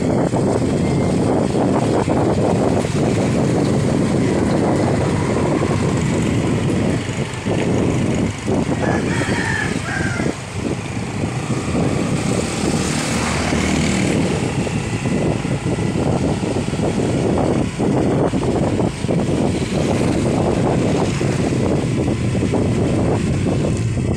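Motorcycle running along a road, its engine mixed with wind rumbling on the phone's microphone while riding.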